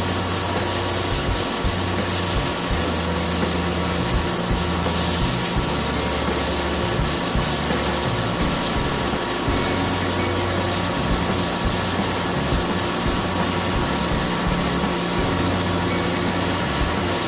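CNC machine running: a steady high-pitched whine over a low hum that steps between a few pitches every second or so.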